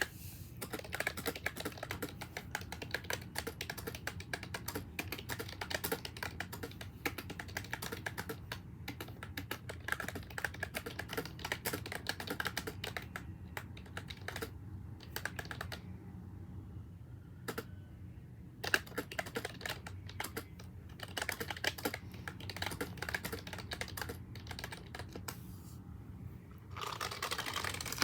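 Fast typing on a wooden keyboard, keys clicking rapidly and continuously, with a pause of about two seconds a little past halfway.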